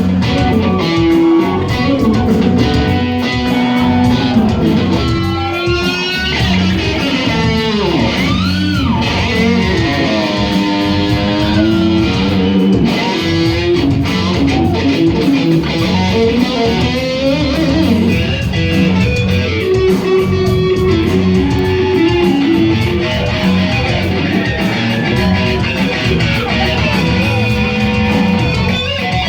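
Live hard rock band playing: electric guitar lead with wide pitch bends and swooping glides over bass guitar and drums.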